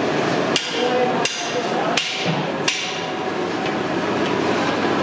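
Four sharp knocks of a metal ladle against a large metal cooking pot, roughly one every 0.7 s, each with a brief metallic ring, over a steady noisy background.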